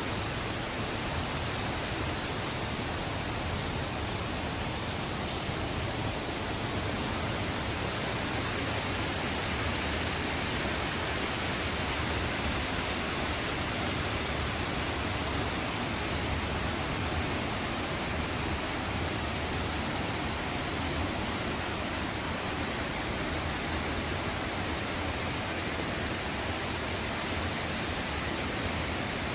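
River water rushing through the Río Claro's falls and rock pools in full flow after heavy rain: a steady, even noise of fast water.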